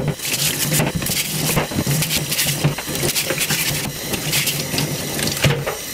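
Stiff plastic brush scrubbing the shell of a swimming crab (gazami) under a running tap in a stainless steel sink. Quick, repeated scratchy strokes over the steady run of water.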